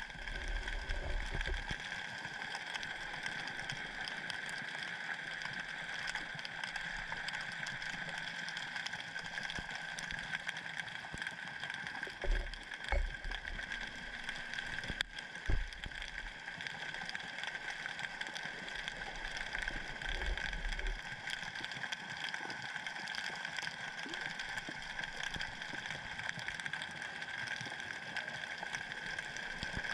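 Underwater sound picked up by a submerged camera: a steady hiss with a constant high whine, broken by a few short low thumps, several of them around the middle.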